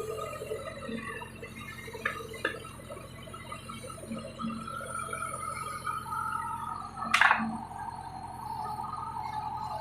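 Backhoe loader clearing a ditch: wet mud and water sloshing as the bucket works, over the steady hum and whine of the machine. There is one loud sharp clank about seven seconds in, with a few lighter knocks a couple of seconds in.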